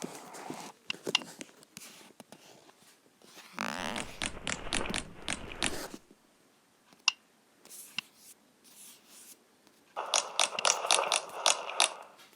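Slime being squeezed and poked by hand, giving runs of sharp clicking pops over a wet squishing noise. There are two main runs, one about four seconds in and one near the end, with a few single pops between.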